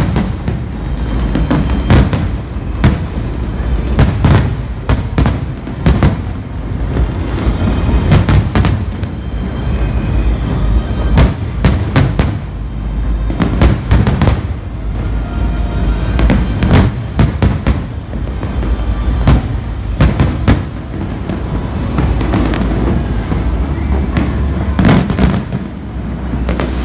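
Aerial firework shells bursting in a large display: many sharp bangs in irregular quick succession over a continuous low rumble.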